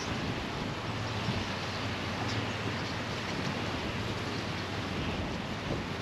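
Steady wind and sea surf, with wind rumbling on the microphone.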